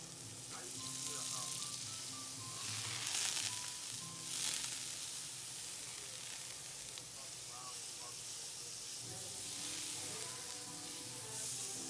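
Butter sizzling as it melts and foams in a hot flat nonstick pan, pushed around with a silicone spatula. The sizzle swells briefly about three and four and a half seconds in.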